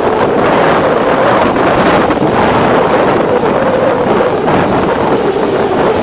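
Loud, steady wind noise rushing over the microphone.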